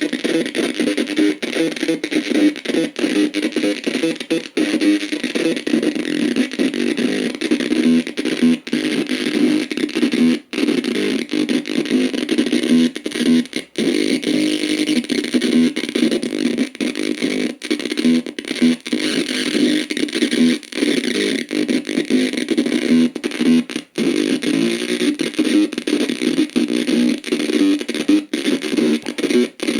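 Harsh noise music: a dense, loud, distorted wall of noise with many brief sudden dropouts.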